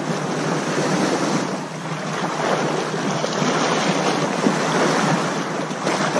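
Small sea waves lapping close by, with wind blowing on the microphone.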